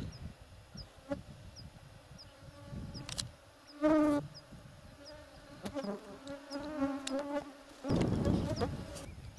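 A flying insect buzzing past the microphone, loud for about half a second near the middle with a slightly wavering pitch, then buzzing more faintly for a couple of seconds. A faint high chirp repeats steadily about twice a second, and a low rumble comes in near the end.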